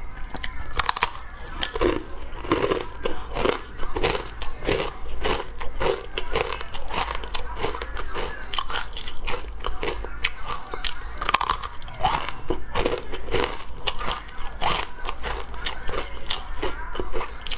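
Crunching bites and chewing of puffed corn crisp bars close to a clip-on microphone: many sharp crunches in quick succession.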